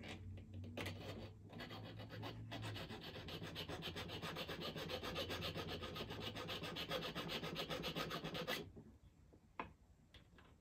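A small hand file rasps in quick, even strokes across the ends of a metal ring seat, filing the edges flat to prepare them for soldering. The filing stops about eight and a half seconds in.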